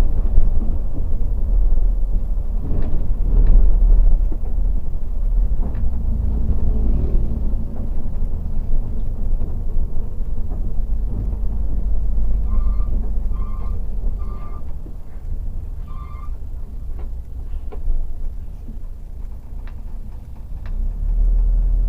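Steady low rumble of a Mercedes-Benz O500RS 1836 bus driving at speed, heard inside the cabin. About two-thirds of the way through come four short electronic beeps, three in quick succession and then one more.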